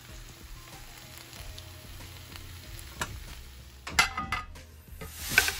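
Metal slotted spatula stirring and scooping chilli chicken in a hot non-stick wok, the pan still sizzling, with scrapes and a sharp metal clink about four seconds in and again near the end.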